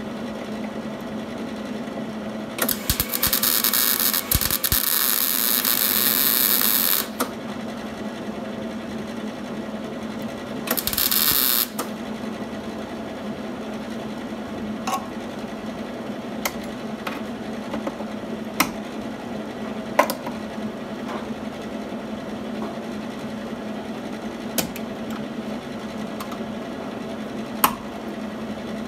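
MIG welder arc crackling in two runs, one of about four seconds starting near three seconds in and a shorter one of about a second near eleven seconds, tacking the car's inner body structure. A steady low hum runs underneath, with a few sharp single clicks in the later part.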